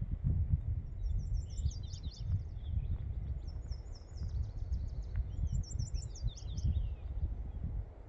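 Wind buffeting the microphone in uneven gusts, with a small songbird singing three high phrases of quick repeated down-slurred notes.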